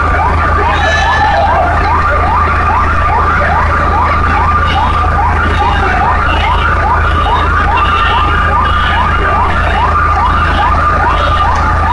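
Fire engine siren sounding a fast yelp, a rising sweep repeated about two to three times a second without a break, over a steady low rumble.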